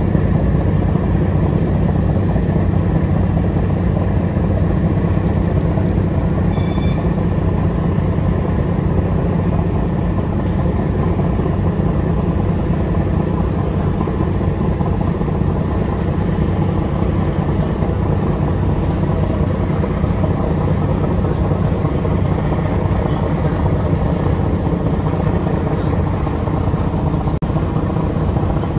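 Large river passenger launch's diesel engines running steadily at cruising speed, a deep even drone with water rushing along the hull. A few faint short high chirps come about six seconds in.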